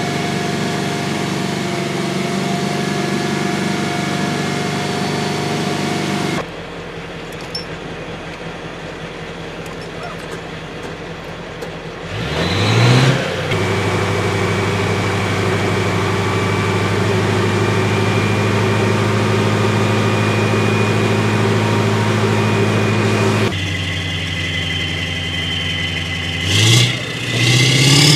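Heavy amphibious military vehicle's engine running steadily. Its pitch and level change abruptly several times, and it revs up briefly about halfway through and twice near the end.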